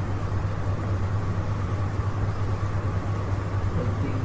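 Steady low hum with an even hiss underneath: background noise picked up by the narrator's microphone while no one speaks.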